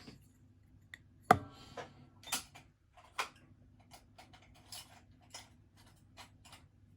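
Light clicks and taps from small hard objects being handled, with one sharper knock about a second in and a run of fainter ticks in the second half.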